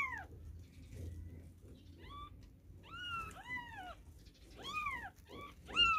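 Very young kittens mewing: a string of short, high-pitched mews, each rising then falling in pitch, about eight in all, coming closer together in the second half.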